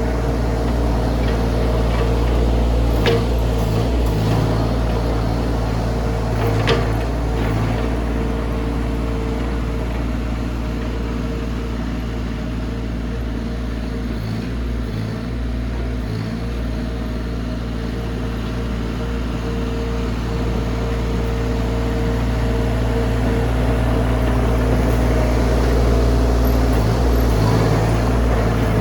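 Mini excavator engine running steadily while working, with two sharp knocks about three and seven seconds in and the engine getting a little louder near the end.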